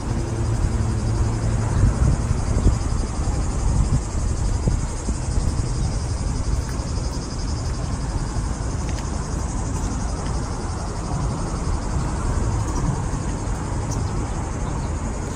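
Outdoor ambience: a steady high buzz of insects over a low, uneven rumble of wind buffeting the microphone.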